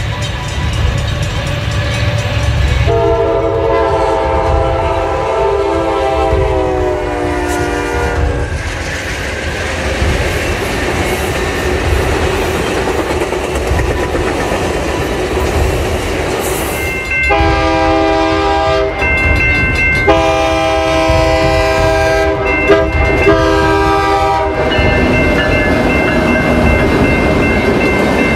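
A diesel locomotive's air horn sounding over the rumble of a passing train: one long multi-note blast a few seconds in, its pitch sagging slightly, then a series of blasts with short breaks later on. A steady rumble runs beneath throughout.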